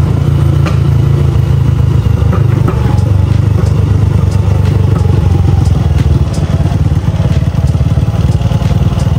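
Small single-cylinder motorcycle engine pulling slowly up a steep street in fourth gear with a passenger aboard, lugging under load with a steady low pulsing. Light clicks and rattles scattered through it.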